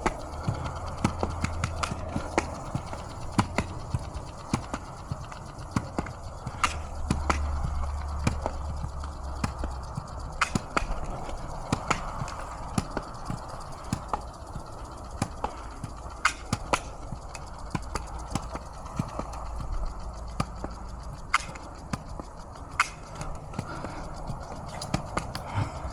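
Footsteps of a person walking on pavement: a run of sharp, irregular clicks over a steady background hiss.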